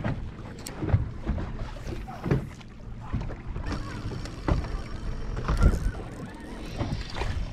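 Choppy lake water lapping and slapping against the hull of a Caymas bass boat, with wind on the microphone and several short knocks scattered through.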